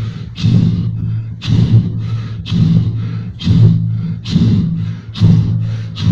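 A man imitating a train with his voice: a steady low droning hum with a hissing chuff about once a second, like a train running on the track.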